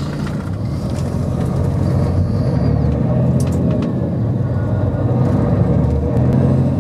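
Motor vehicle engine running with a steady low drone, with a couple of light clicks about three and a half seconds in.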